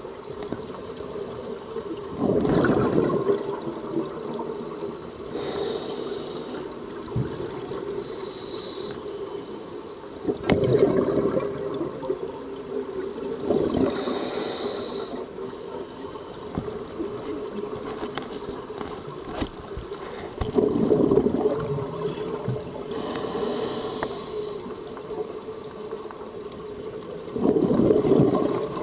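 Scuba regulator breathing heard underwater: a hiss on each inhale, then a loud burbling rush of exhaled bubbles, about once every seven seconds, over a steady low underwater hum.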